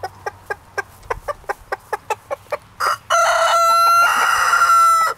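A rooster giving a rapid run of short clucks, about four a second, the tidbitting call a rooster uses to call hens to food. About three seconds in, a loud crow lasts about two seconds.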